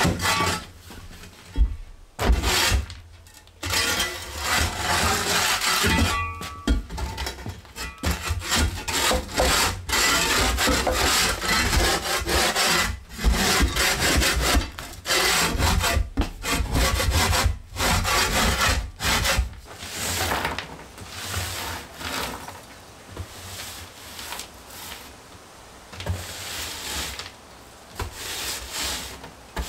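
Long-handled floor scraper scraping a plywood subfloor in repeated loud strokes. About two-thirds of the way through it gives way to softer broom sweeping on the same floor.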